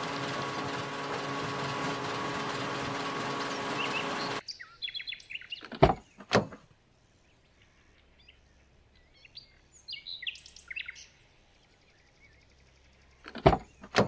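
Small electric pump motor in a toy petrol-pump model running with a steady whir, which cuts off about four seconds in. After it come two sharp knocks, faint bird chirps, and a few clicks near the end as the pump's plastic nozzle is handled.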